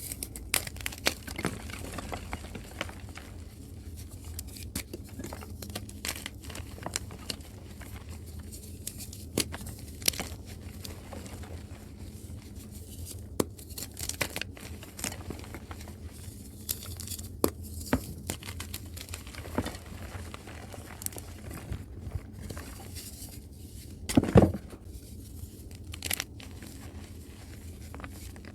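Dusty blocks of reformed chalk crumbling and crushing, a steady crackle and crunch with many sharp snaps. One brief, much louder sound about 24 seconds in.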